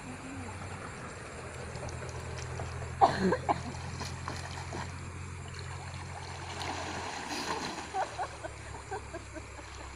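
Water splashing as people dive and swim in a shallow river: a sharp burst of splashes about three seconds in, and a run of shorter splashes in the last few seconds. A steady low hum runs underneath.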